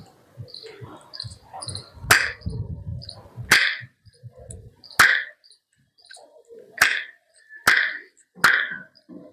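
Loud tongue clicks: the tongue is pressed against the roof of the mouth and snapped away, and the inrushing air makes a hard pop. Six sharp clicks come a second or two apart, with a knock like stone or wood.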